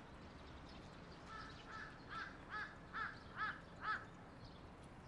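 A bird calling: about seven short calls in a row, roughly two a second, growing louder and stopping about four seconds in, over faint outdoor background noise.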